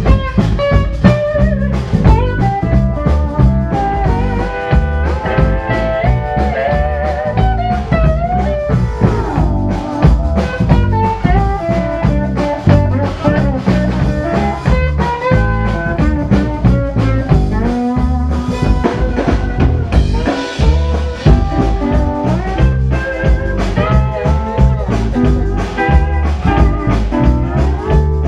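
Live country and western band playing: guitar over bass and a drum kit keeping a steady beat.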